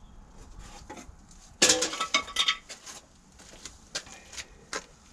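Metal parts and tools clinking as they are handled during timing-chain work on an engine: a loud burst of ringing clinks about a second and a half in, then a few single clicks and taps.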